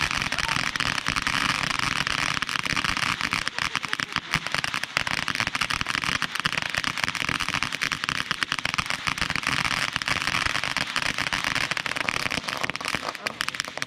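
Ground fountain firework spraying sparks with a dense, continuous crackling of rapid pops.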